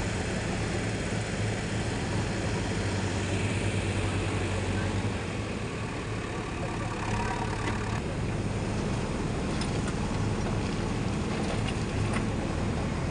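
JCB 3DX backhoe loader's diesel engine running steadily as the front loader scoops and lifts soil. A few faint ticks come through in the second half.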